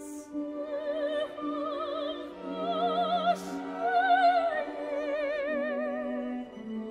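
A soprano sings a slow Chinese art song in Chinese, holding notes with wide, even vibrato, over sustained orchestral accompaniment.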